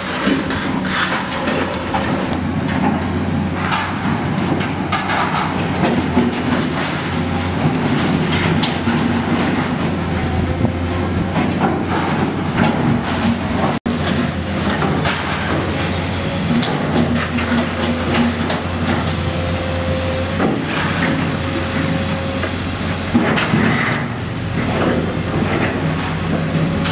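Komatsu hydraulic excavator working rubble: its diesel engine runs steadily under constant clanking and knocking of metal and concrete debris, with a steady whine at times.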